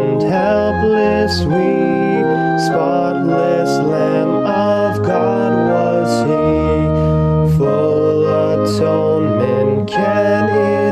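A hymn sung by a solo voice over sustained organ chords. The chords change every second or so, and the voice holds long notes with vibrato.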